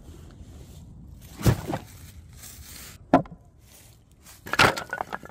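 Several separate dull knocks and thuds: two close together about one and a half seconds in, a single sharp knock a little after three seconds, and a louder cluster of knocks near the end.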